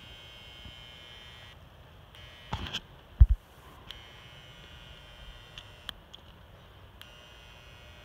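Refrigerator compressor, its shell opened and its oil drained, running dry with a faint steady electrical hum and buzz; it is labouring, starved of oil. Two short knocks about two and a half and three seconds in, the second a heavy low thump.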